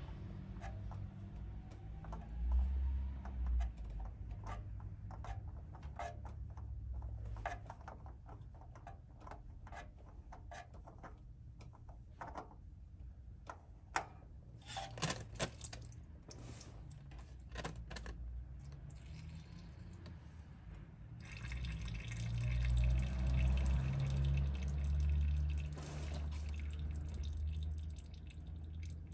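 Old spin-on oil filter being unscrewed by hand from a Subaru EJ20 turbo engine, with scattered clicks and scrapes. About three quarters of the way in there is a louder stretch as the filter comes free, and engine oil pours and drips from the filter mount.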